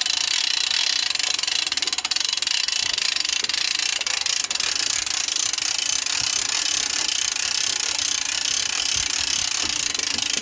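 Hand-cranked boat trailer winch being wound, its ratchet pawl clicking rapidly and steadily as the strap hauls the boat up onto the trailer rollers.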